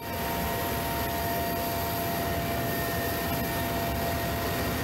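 Helicopter in flight heard from inside its cabin with the side door open: a steady rush of engine, rotor and wind noise, with a few steady whining tones running through it.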